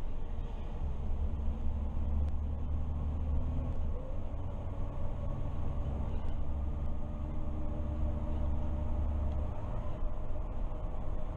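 MAN Lion's City CNG city bus driving along, heard from the driver's cab: a steady low engine rumble with tyre and road noise. The deepest part of the rumble drops away near the end.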